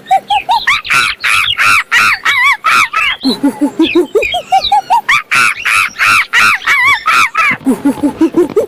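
A monkey calling: rapid short hoots that climb in pitch and break into high, arching screeches. The run starts over twice, about every four and a half seconds.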